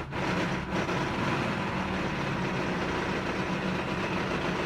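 ZAZ Slavuta's four-cylinder engine running with a knock in it, which the owner later puts down to a cracked crankshaft letting the flywheel wobble.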